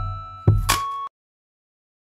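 Background music with a beat and held notes, cutting off abruptly about halfway through, then dead silence.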